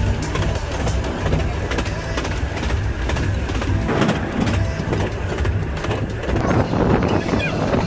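Running noise of a narrow-gauge steam railway carriage in motion: a steady low rumble of the wheels on the rails.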